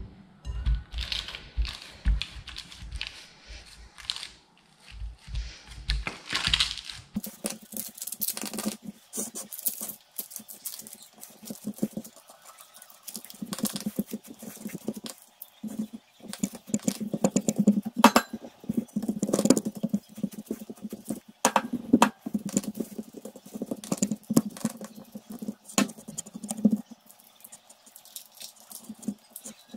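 Buttered biscuit crumbs being pressed and spread into a springform cake pan: a long run of irregular taps, knocks and scrapes against the pan.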